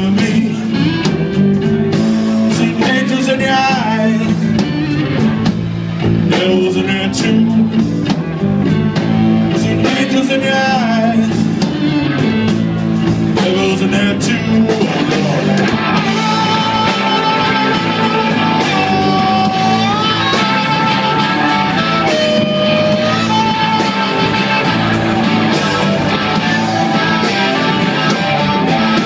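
Blues-rock band playing live, with electric guitar, bass guitar and drums under sung vocals in the first half. From about halfway, long held lead notes that bend in pitch take over, played on a harmonica cupped to the vocal mic.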